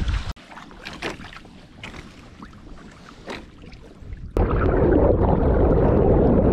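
A short burst of wind on the microphone, cut off to a quieter stretch with scattered faint ticks. A bit over four seconds in, loud water rushing and splashing starts suddenly, against a camera held at the waterline of a Hobie Tandem Island sailing trimaran under way.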